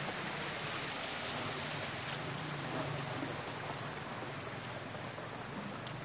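Steady rushing noise of floodwater flowing through a street, with a faint low hum underneath.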